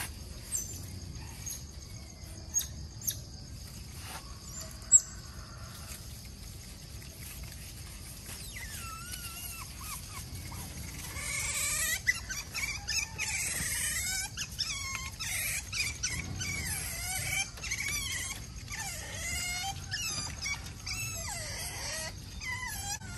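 Otters chirping and squealing: many short, high-pitched calls that glide up and down, starting about a third of the way in and coming thick and fast from about halfway. Before the calls start there are a few sharp clicks.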